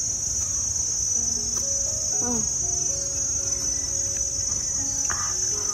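Insects chirring in a steady, unbroken high-pitched drone, over a soft background melody.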